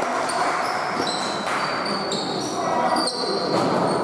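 Basketball game in play in a sports hall: ball bouncing on the court, with many short, high squeaks of sneakers on the hardwood floor over a steady crowd din.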